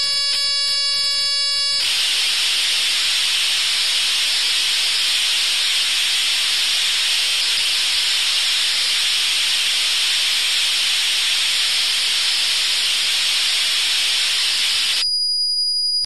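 Commodore 64 cassette data signal, the squeaky sound of a C64 program being loaded from tape: a steady pitched tone for about two seconds, then an even, harsh screeching hiss of data for about thirteen seconds, ending in a brief high steady tone. It encodes a program that, loaded on a Commodore 64, plays an animated invitation.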